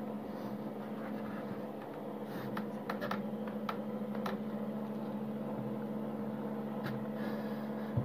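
Steady electric hum of a homemade egg incubator's fan motor, with a few light clicks about two to four seconds in and again near the end.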